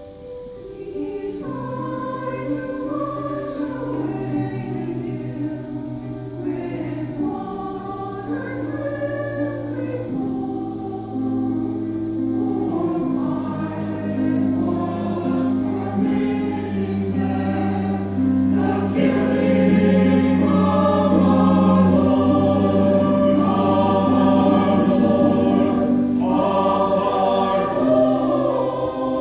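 Church choir singing a cantata with instrumental accompaniment, the voices holding long notes over a sustained bass and growing louder past the middle.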